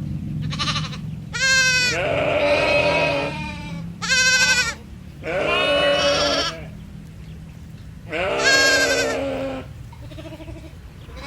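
Sheep bleating: about five quavering calls at varying pitches, some long and some short, over a low steady hum.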